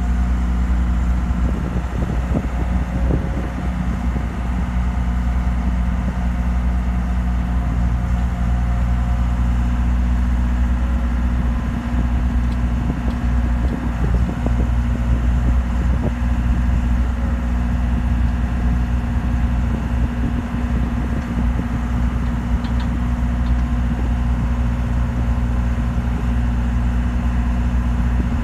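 Heavy equipment's engine idling steadily, a constant low hum.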